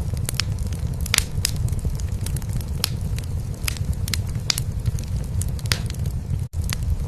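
Wood fire crackling in a fireplace, with frequent sharp pops and snaps, over a steady low cat purr. The sound cuts out for a split second near the end.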